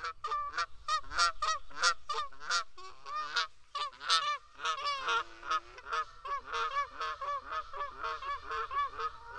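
A flock of birds calling, many short calls overlapping at several a second.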